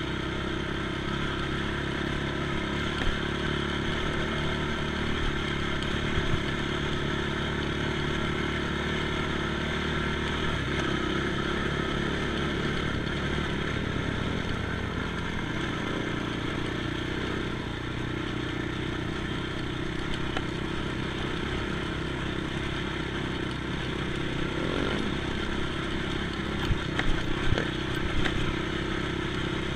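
ATV engine running steadily under way, with a few sharp knocks and rattles, several of them close together near the end.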